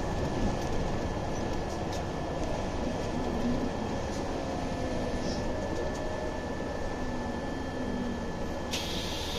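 Cabin noise inside a moving Scania OmniLink city bus: a steady rumble of engine and road with a thin constant whine. A steady hiss comes in abruptly near the end as the bus slows for a stop.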